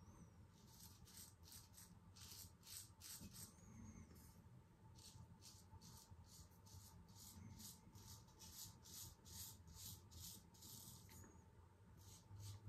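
Damascus steel straight razor scraping through a day's stubble under shaving lather: faint, short strokes, about two a second, with a couple of brief pauses.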